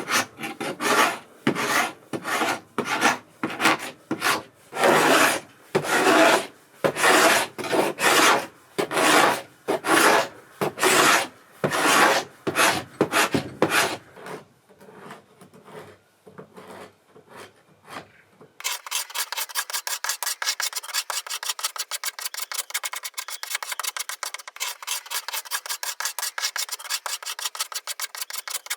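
Abrasive strokes on old weathered wood, worked back and forth by hand at about two strokes a second as the door's surface is cleaned up. About two-thirds of the way through the strokes fade and stop, and a different, thinner sound of rapid ticking takes over.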